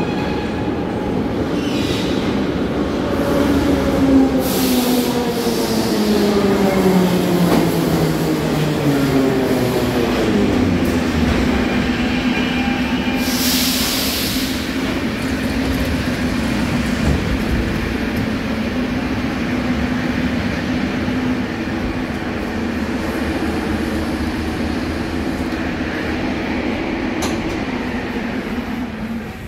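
Moscow metro train arriving at the platform: its motor whine falls steadily in pitch as it slows to a stop over about ten seconds, with short hisses about four and thirteen seconds in. Then a steady low hum from the train as it stands at the platform.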